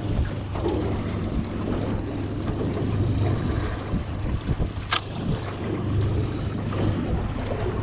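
Wind buffeting the microphone and choppy sea washing against a small boat's hull, over a steady low hum, with a single sharp click about five seconds in.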